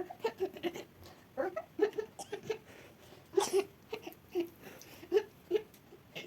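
A baby-like voice fussing and whimpering in a string of short, broken sounds.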